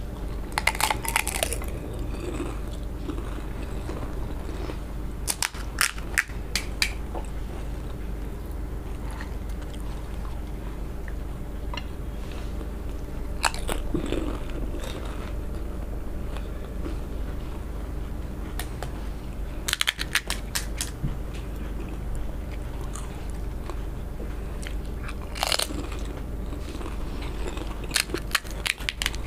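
Crisp fried panipuri (fuchka) shells crunching as they are bitten and chewed. Short clusters of crackling come every five to seven seconds over a steady low hum.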